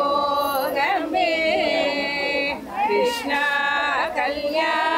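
Background song: a woman singing long, held notes that waver in pitch, separated by short breaths.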